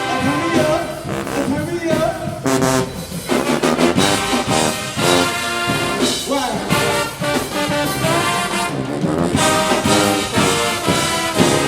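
HBCU marching band playing loudly: brass with trombones prominent, over drums.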